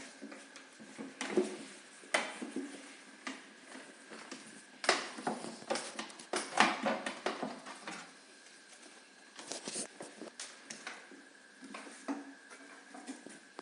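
Irregular clicks, taps and knocks of wooden hive parts and a plastic-covered observation window being handled and fitted, busiest about five to seven seconds in.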